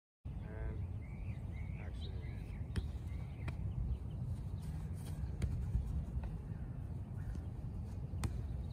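Steady low rumble of wind on the microphone, with a few sharp knocks of a soccer ball being kicked back and forth and some short bird chirps in the first few seconds.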